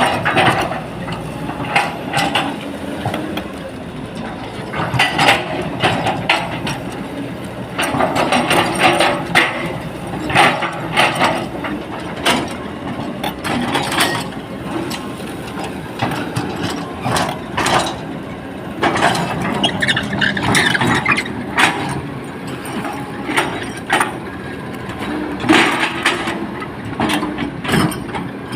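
Excavator's diesel engine running under work, with frequent metallic clanks and scrapes throughout.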